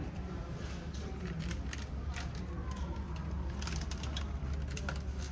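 Indistinct background voices over a steady low hum, with scattered light clicks and knocks.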